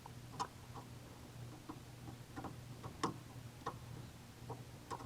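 Faint, irregular light ticks and clicks, about ten in all, over a low steady hum. The clearest click comes about three seconds in.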